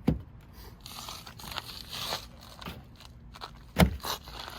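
Handling noise from fitting plastic bumper parts by hand: a sharp knock at the start and a louder one near the end, with scraping and crinkling between.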